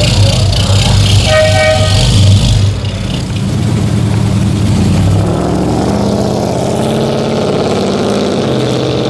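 Plymouth GTX 440 V8 running with a deep, lumpy rumble, with a short horn blast of several steady tones about a second and a half in. From about five seconds the engine pulls away at low revs, its pitch wavering and rising.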